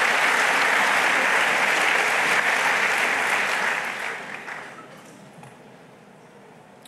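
A large seated audience applauding, the clapping dying away about four to five seconds in to a quiet hall.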